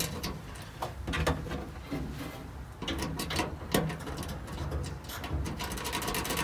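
Handling noise from working a red power cable into a fuse block: scattered clicks, knocks and rustles of hands, wire and terminal, with a quick run of rattling clicks near the end.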